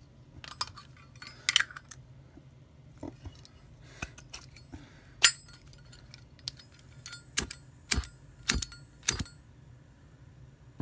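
A string of sharp metal clicks and clinks, spaced irregularly, from a butane lighter insert and a brass Zippo case being handled: the insert pushed into the case, the lid snapping, and the insert's igniter clicking until it lights.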